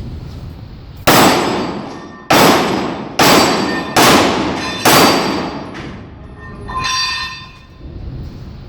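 Five pistol shots from a CZ Shadow 2, about a second apart, each trailing off in a long echo, followed near the end by a short metallic ring.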